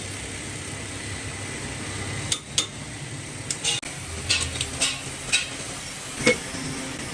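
Metal lathe running with a steady hum, with a scatter of light metallic clinks from about two seconds in, the last and loudest a little over six seconds in.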